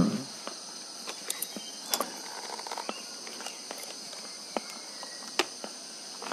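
Steady high chirring of crickets, with a few scattered light clicks and taps.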